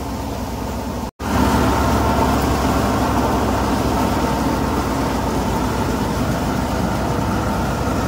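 Tractor-driven Guru Nanak paddy thresher running steadily as it threshes rice, a continuous machine drone. The sound cuts out for an instant about a second in, then carries on slightly louder.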